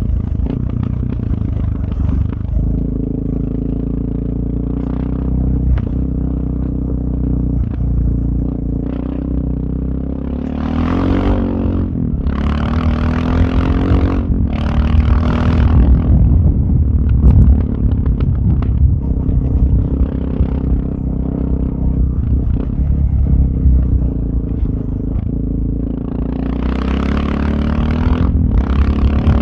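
Suzuki DR650's single-cylinder engine running through a Powercore 4 exhaust while being ridden: a steady low exhaust beat. The pitch rises as the throttle opens about ten seconds in, and it gets louder under harder throttle through the middle and again near the end.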